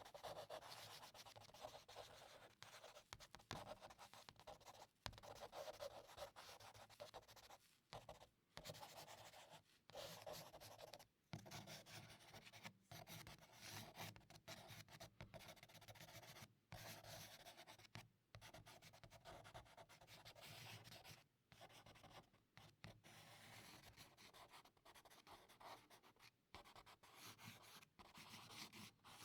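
Charcoal stick scratching and rubbing across paper in quiet, continuous drawing strokes, broken by brief pauses between strokes.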